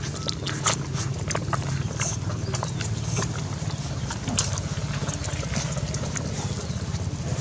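A litter of puppies nursing from their mother: rapid wet sucking and smacking clicks with a few brief squeaks, over a steady low hum.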